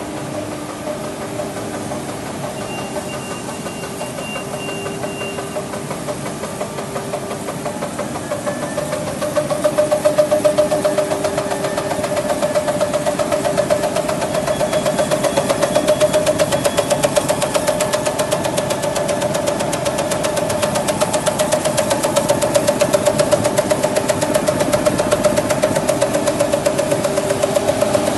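Gallus EM 510 slitter rewinder running: a steady mechanical hum with several held tones. About nine seconds in it gets louder and takes on a fast, even pulsing.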